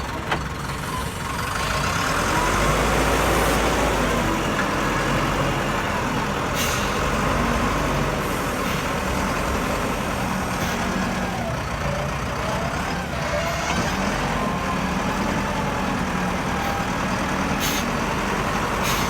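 Diesel engine of an SZM ZL30 backhoe loader running under load. It revs up about two seconds in, with a whine that rises and falls and a few sharp knocks.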